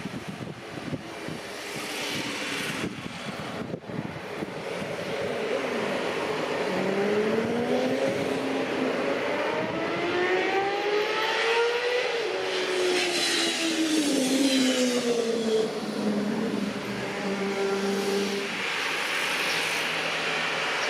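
Airbus A320 jet engines on landing: a rushing roar with a whine that rises in pitch for about five seconds, peaks near the middle, then falls away again.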